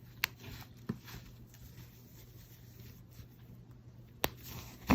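Quiet rustling of a homemade cloth face mask being handled, with three sharp clicks, the loudest about four seconds in.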